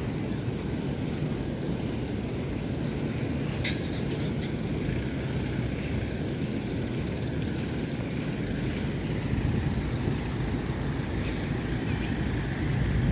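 Steady low rumble of ocean surf breaking on the beach, with a brief click about four seconds in.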